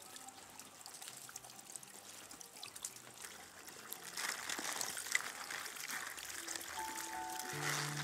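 Running water trickling and pouring, growing louder about halfway through, with soft music coming in near the end.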